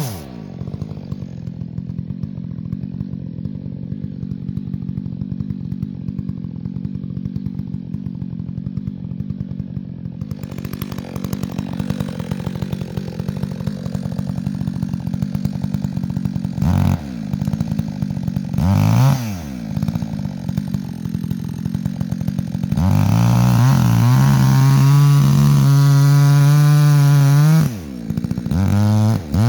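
Chainsaw dropping to idle and idling for about fifteen seconds, then revved up and down twice. It is then held at high revs for several seconds, drops off briefly near the end, and revs up again.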